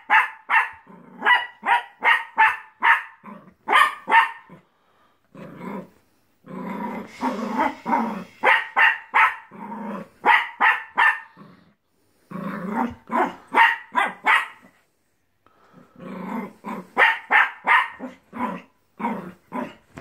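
A young puppy barking in runs of quick, sharp yaps separated by short pauses, with a stretch of growling mixed into the barks about a third of the way in, as it plays rough with another dog.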